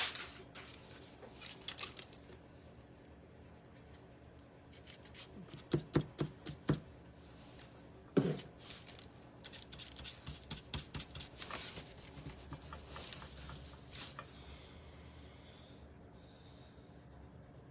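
Soft brush strokes and dabs of paint on a painted screen, with scattered light clicks and taps from handling the brush and paint. A few louder knocks come about six seconds in and again about eight seconds in.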